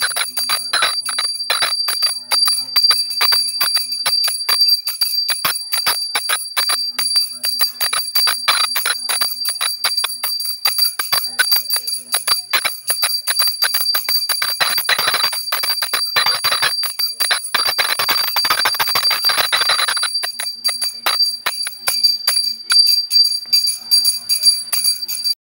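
A small brass puja hand bell (ghanti) rung rapidly and without pause during the lamp offering (aarti), a steady high ringing made of quick clapper strikes. It stops abruptly at the very end.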